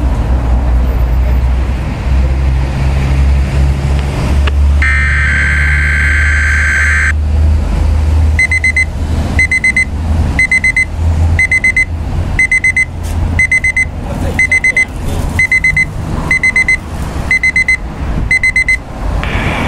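Emergency alert test tones: a burst of high warbling data tone about five seconds in, lasting about two seconds, then a high electronic beep pattern repeating about once a second, a dozen times. A steady low rumble of a car runs underneath.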